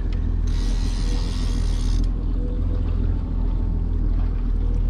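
Boat engine running steadily at trolling speed, a low drone, with a burst of hiss from about half a second to two seconds in.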